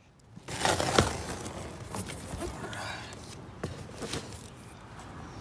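Cardboard shipping box being opened: flaps pulled back and packaging rustling, with a sharp snap about a second in, then quieter rustling and a few clicks.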